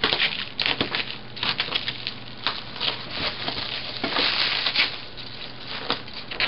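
Plastic packing wrap crinkling and rustling as it is slit with a utility knife and pulled away by hand: a run of irregular crackles.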